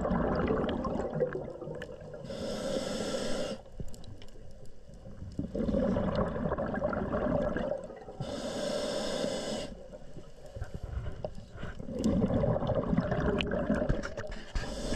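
A diver breathing underwater, heard through the camera housing. A hiss of drawn breath comes about every six seconds, three times, between longer stretches of low, gurgling rumble of exhaled bubbles and water.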